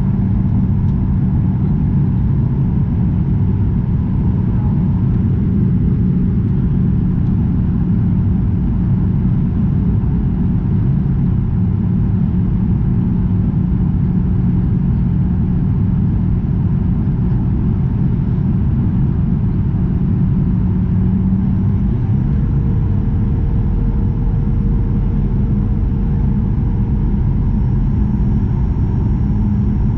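Steady in-flight cabin noise of a Boeing 737-900ER: a low rumble of engines and airflow with a steady hum. A faint higher tone joins about two-thirds of the way through.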